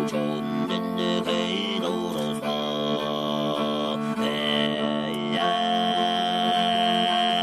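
Background music: a steady low drone with long held tones above it and a high sustained line that wavers near the end.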